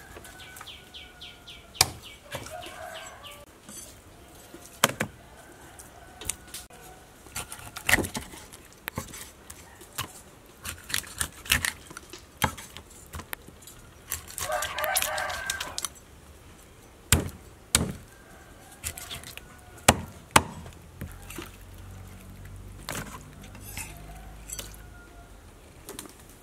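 A heavy kitchen knife chopping through a snakehead fish on a wooden cutting board: a dozen or so sharp knocks at uneven intervals. A rooster crows once about halfway through, and chickens cluck now and then.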